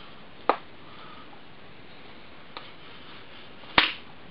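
A utility knife being worked through a piece of damp tree bark: three short, sharp clicks as the blade cuts, a faint one in the middle and the loudest near the end.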